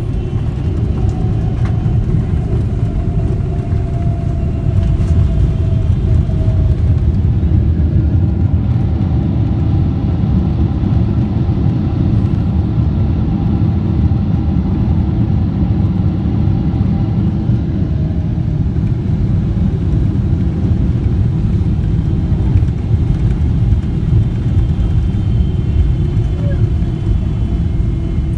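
Cabin noise inside a Boeing 777 during landing: a loud, steady low rumble of engines, airflow and aircraft structure, with no sudden bangs.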